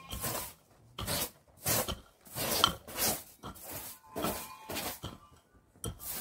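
Rhythmic scraping or rasping strokes, about one and a half a second, each short and hissy.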